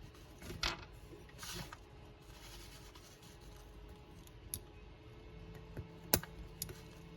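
Small plastic Lego pieces being handled and fitted together: a few faint, sharp clicks, the loudest about six seconds in, with a short rustle about a second and a half in.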